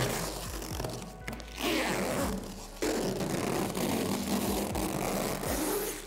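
Protective plastic film being peeled off a polycarbonate backboard and crumpled, a rasping crinkle in irregular spurts with short pauses, over quiet background music.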